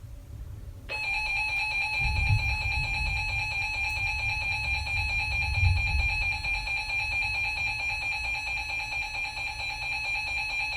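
Emergency Alert System attention signal: a steady electronic alert tone that starts about a second in and holds, announcing a severe thunderstorm warning about to be read. A low rumble sits beneath it, swelling twice.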